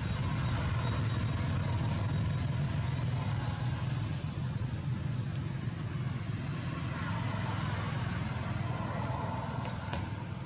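A motor vehicle engine running steadily, a constant low rumble.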